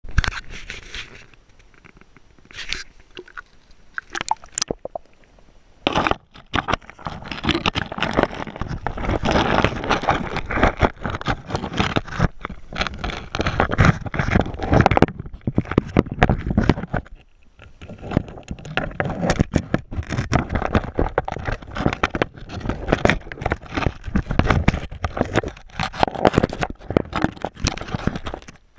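River current heard through an underwater camera's waterproof housing. The first few seconds hold a few knocks as the camera is handled. After about six seconds comes a dense crackling, scraping rush of water over gravel, which dips briefly past the middle.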